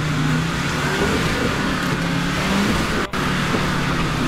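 Land Rover Discovery's diesel engine revving under load as the 4x4 crawls at a steep rock step, its pitch rising and falling a little.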